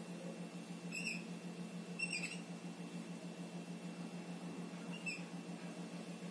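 Whiteboard marker squeaking on the board as short dashes are drawn: three brief squeaks, about a second in, around two seconds in, and again about five seconds in, over a steady low hum.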